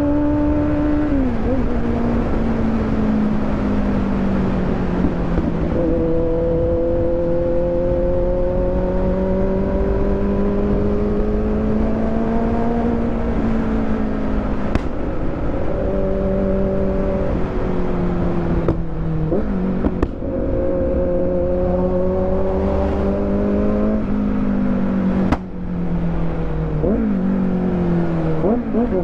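Kawasaki motorcycle engine under hard riding, its note rising and falling with the throttle and broken sharply a few times by quick gear changes, climbing steeply near the end.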